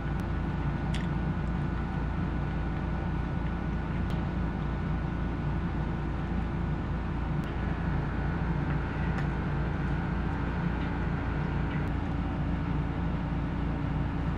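Steady machine-like hum with a few faint clicks, likely a fork touching a dish.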